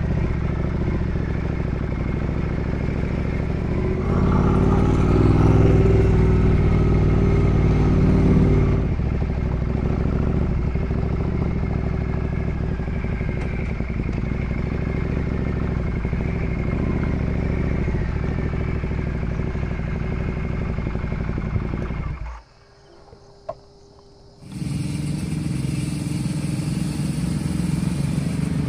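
Ducati Multistrada 1200S V-twin engine running under way, heard from on board. It gets louder for a few seconds about four seconds in as the bike pulls harder. The sound cuts out for about two seconds near the end, then the engine resumes.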